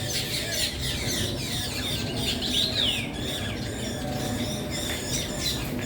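A flock of birds calling at once: many overlapping chirps and squawks, some sweeping down in pitch, over a steady background hum.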